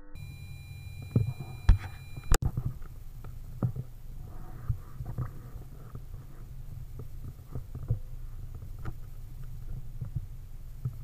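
Handling noise of an air rifle with a scope-mounted camera as it is swung round: knocks and clicks over a steady low hum, the loudest knocks in the first two and a half seconds, lighter taps after.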